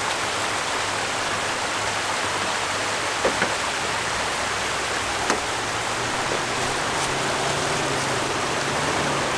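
Creek water rushing steadily over rocks, with the low hum of the Lexus GX's engine underneath that rises slightly in pitch about six seconds in. A couple of faint knocks.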